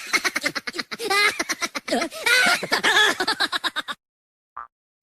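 Laughter sound effect: rapid giggling and snickering for about four seconds that then stops abruptly, followed by one short blip.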